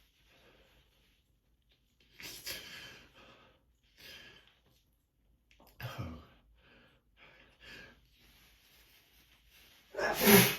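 A man's allergic sneezing fit: a few short breathy gasps and sniffs, then a loud sneeze breaking out at the very end.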